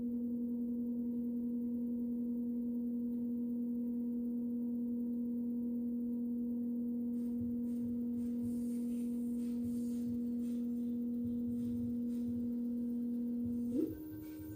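A steady electrical tone from a powered-up electric scooter, with faint clicking in the second half. Near the end the tone jumps briefly, then settles at a slightly higher, quieter pitch.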